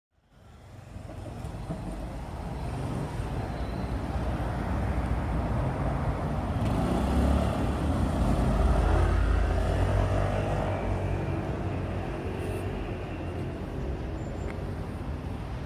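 Street traffic at a city intersection: cars and a motor scooter passing, a steady rumble that fades in at the start and is loudest around the middle.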